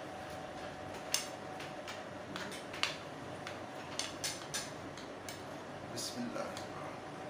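Metal spoon clinking and scraping against a ceramic plate while eating, about ten irregular sharp clinks, the loudest about a second in and again near three seconds in, over a faint steady hum.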